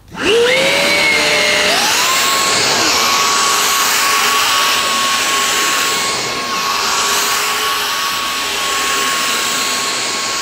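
Numatic Quick cordless stick vacuum switched on with a click, its motor winding up with a rising whine that steps up in pitch about two seconds in. It then runs steadily on its boost (maximum) setting, a high whine over rushing air, as the floor head is pushed across plush carpet.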